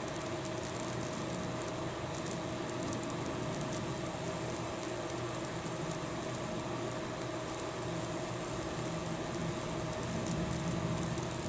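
High-voltage current burning branching tracks across wet, baking-soda-soaked wood: a steady sizzling and crackling, with faint sharp ticks and a constant electrical hum beneath it.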